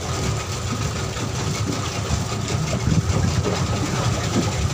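Motor of a fiberglass glass-bottom tourist boat running steadily, heard from on board.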